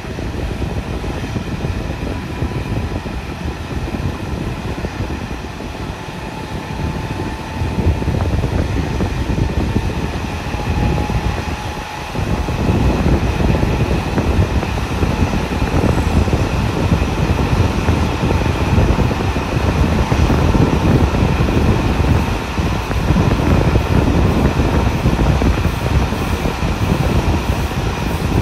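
Diesel-hauled passenger train running at speed, heard at an open coach window: a steady rush of wind and the rumble of wheels on the rails, with a faint steady hum. It grows louder about twelve seconds in.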